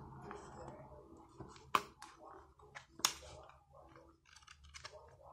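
Paper pages of a small notebook being handled and turned: soft rustling and rubbing, with two sharp clicks, one about two seconds in and one about three seconds in.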